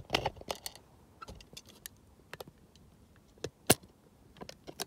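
Handling noise from a camera being set down on the ground: a scatter of short, sharp clicks and knocks, the loudest a little past three and a half seconds in.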